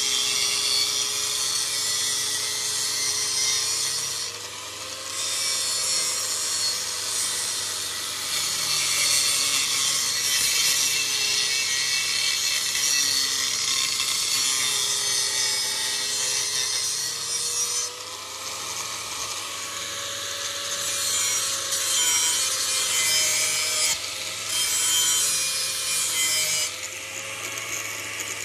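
Knife blade being ground on a powered grinder: a harsh scraping hiss in long passes, with brief breaks where the blade comes off the wheel. Under it the grinder motor hums, its pitch dipping and rising as the blade is pressed on.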